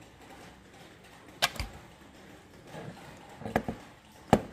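A few short, sharp clicks and knocks of hard objects being handled: a pair about a second and a half in, a small cluster around three and a half seconds, and the loudest one near the end.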